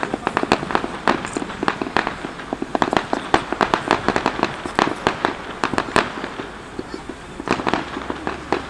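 Fireworks going off in rapid succession: many sharp bangs and pops, easing briefly about six seconds in before more bangs near the end.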